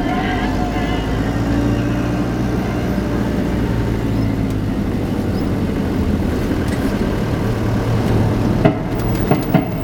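Van engine and road noise heard from inside the cab while driving slowly, a steady low hum. A few sharp knocks come near the end.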